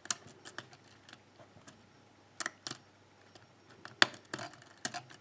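Small, sharp metallic clicks and ticks of a lock pick working the pins of a pin tumbler lock under tension, irregular and spaced out, with a few louder clicks in the second half.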